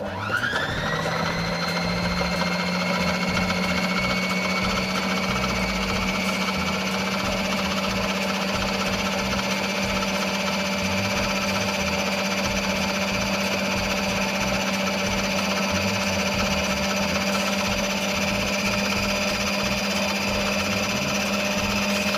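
Electric food processor switched on, its motor spinning up with a rising whine over about a second, then running steadily as the blade chops a wet mix of scallion, thyme, onion, ginger and garlic.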